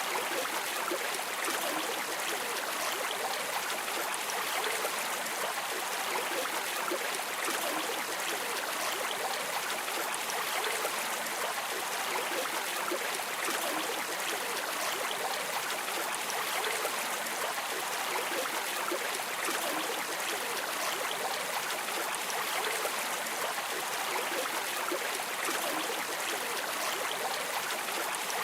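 Flowing river water making a steady, unbroken rushing sound.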